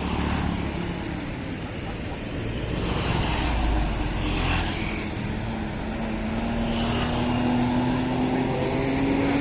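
Bus engine running and pulling away, its note rising slowly and steadily through the second half over a low rumble.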